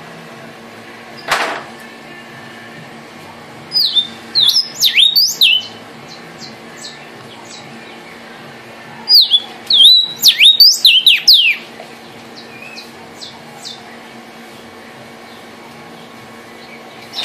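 Vermilion cardinal (cardenal guajiro) singing: two loud runs of clear whistled notes, each slurring sharply downward and lasting about two seconds, about four seconds in and again near ten seconds. A brief rush of noise comes about a second in, over a faint steady hum.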